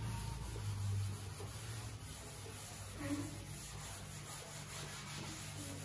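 Faint rubbing of a blackboard duster wiped across a chalkboard, erasing chalk, over a steady low hum.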